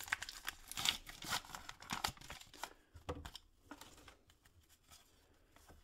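A baseball-card pack wrapper being torn open and crinkled by hand for about three seconds, then fainter handling of the stack of cards taken from it.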